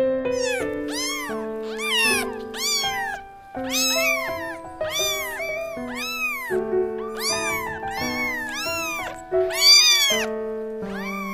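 Kitten mewing over and over, about twice a second, each high mew rising and falling in pitch, over background piano music with held notes.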